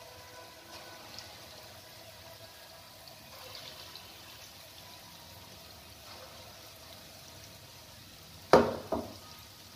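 Urad dal batter dumplings frying in hot oil in an iron kadhai, a steady faint sizzle as more batter is dropped in by hand. Near the end there are two short loud knocks, half a second apart.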